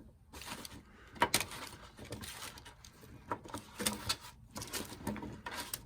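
Sweet potato fries being laid out one by one on a baking pan: light, irregular taps and clicks.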